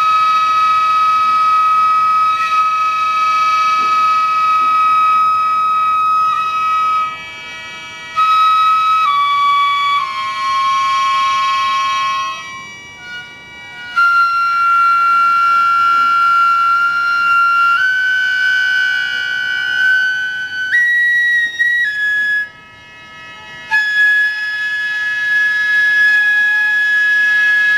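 Gagaku-style Japanese court music led by a wind instrument, holding long notes that step and slide between pitches over a sustained chord of other tones, with a few short pauses between phrases.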